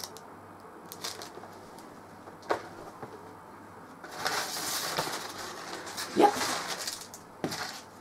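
Crumpled packing paper rustling and crinkling as it is pulled out of a cardboard box, starting about halfway through, after a single light knock.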